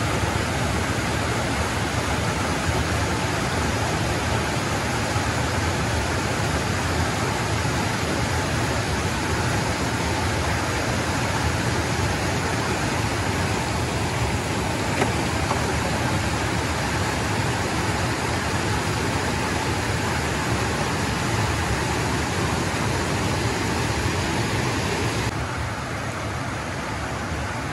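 Water pouring steadily over a stepped river weir, an even rushing noise. Near the end it turns a little duller and quieter.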